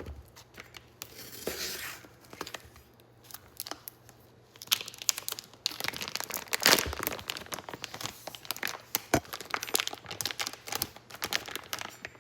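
Bacon packaging being cut and torn open: crinkling plastic and paper with many sharp crackles, sparse at first and busier and louder from about halfway through.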